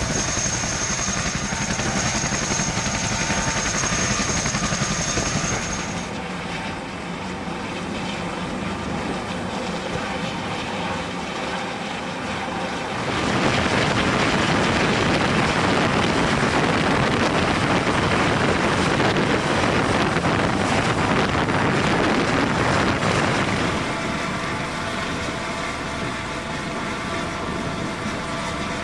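Helicopters running on deck: turbine engine whine and rotor noise from an MH-65 Dolphin and a CH-47 Chinook. A steady high whine drops out about six seconds in, and the noise grows louder for about ten seconds in the middle.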